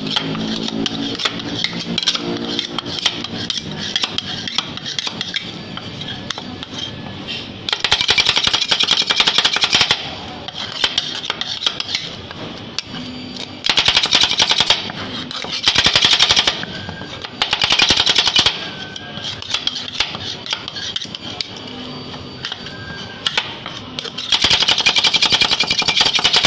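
Two metal spatulas rapidly chopping and tapping on a chilled steel rolled-ice-cream plate, working crushed Oreo into the freezing ice cream base. The clatter comes in about five fast bursts, each a second or two long, with slower scraping and tapping between.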